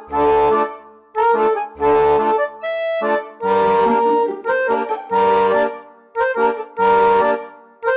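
Upbeat instrumental background music: short, bright chords played on a steady beat, with a bass note under some of them.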